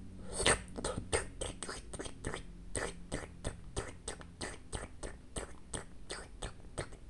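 Cat licking liquid medicine from an oral syringe: a quick run of wet tongue clicks and smacks, about three to four a second, starting just after the beginning.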